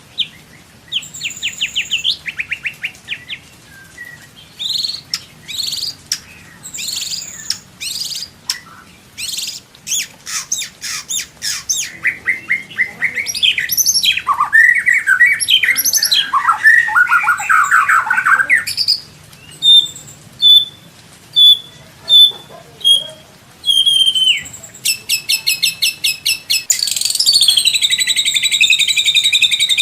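White-rumped shama (murai batu) singing a varied song: quick whistled notes, rapid ticking runs and warbling phrases, then a row of about seven short high whistles. Near the end comes a fast, harsh rattling phrase, the loudest part.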